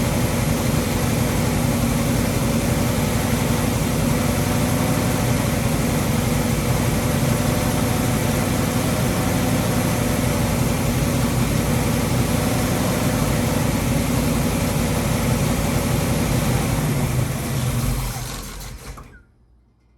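Freshly rebuilt Ford 331 stroker small-block V8 running steadily with no tapping noise, then shutting down and fading out a couple of seconds before the end. It is not idling well, which the builder puts down to distributor timing that has not yet been set.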